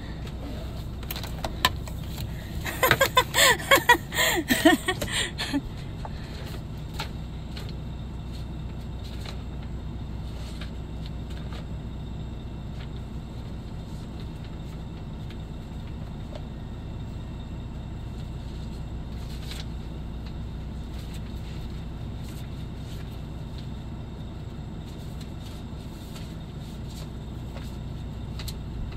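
Steady low hum inside a truck's cab, with a burst of clattering and rustling from things being handled about three seconds in, then scattered light clicks.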